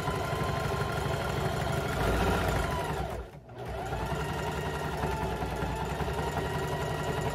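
Electric sewing machine running, stitching coiled jelly roll fabric strips together into a rug. It stops briefly a little after three seconds in, then starts again.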